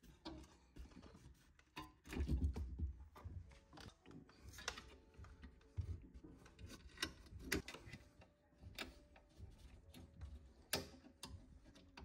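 Handling noise from a new Electrolux refrigerator compressor being set onto its metal mounting plate: scattered clicks, taps and knocks of metal and hard parts, with a dull thud about two seconds in. The compressor is not running.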